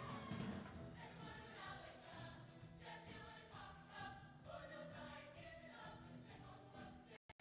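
Mixed-voice show choir singing in harmony with musical accompaniment, with the sound cutting out for a split second near the end.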